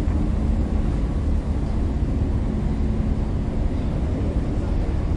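Steady low hum and drone from a vintage FS E.428 electric locomotive, heard close beside its running gear.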